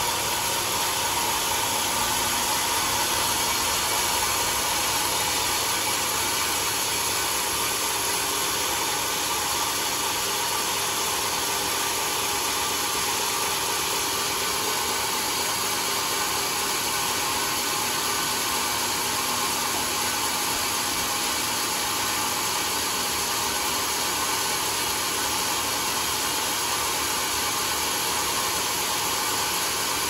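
Large band sawmill running steadily with its blade turning free between cuts, a constant machine hum and hiss.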